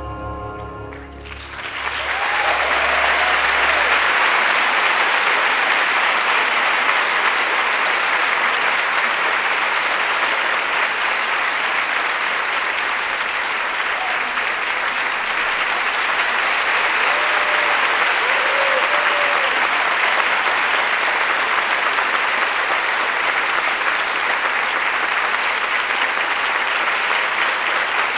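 The last held notes of the music die away about a second in, then a theatre audience applauds steadily.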